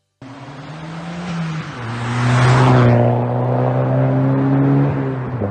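Car engine running loud and steady, its pitch stepping down about one and a half seconds in, with a rushing hiss that swells and falls away around two to three seconds in.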